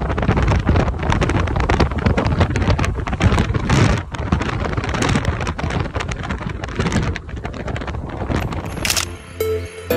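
Wind buffeting the microphone outdoors: a loud, gusty rumbling rush with crackling spikes. About nine seconds in, background music starts.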